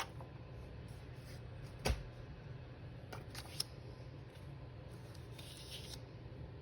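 Paper being handled at a craft table: a sharp click just under two seconds in, a couple of lighter ticks about a second later, and a brief rustle near the end, over a steady low room hum.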